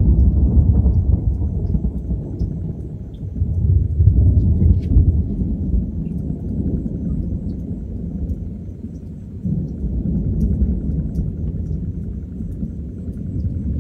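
Thunder rumbling low and long, loudest at the start, swelling again about four seconds in and again about ten seconds in.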